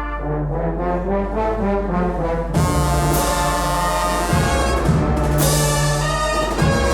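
Agrupación musical, a processional brass band of cornets, trumpets and trombones with percussion, playing a Holy Week processional march. About two and a half seconds in, the full band comes in loudly with low brass and a crash.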